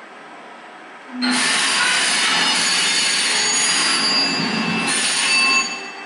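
A ship's steam whistle sounding one long blast of about four and a half seconds. It starts and stops abruptly and is hissy, with a few thin high tones in it.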